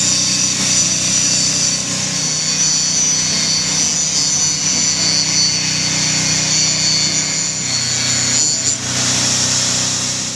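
Rotary sawmill running and sawing wood: a steady, loud high whine from the circular blade over the low hum of the machinery, dropping away at the end.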